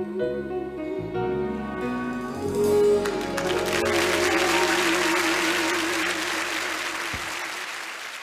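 The closing instrumental bars of a country-pop ballad with held notes and a final sustained, wavering tone. About three seconds in, an audience starts applauding over the last chord; the applause fades toward the end.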